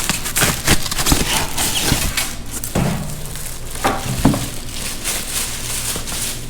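Unboxing noise: cardboard and plastic packaging crackling and rustling in quick irregular bursts as it is handled. There are a couple of heavier knocks, about three seconds in and again a little past four seconds.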